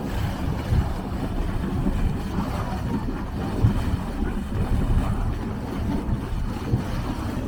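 Wind buffeting the microphone: a loud, uneven low rumble that flutters in level throughout.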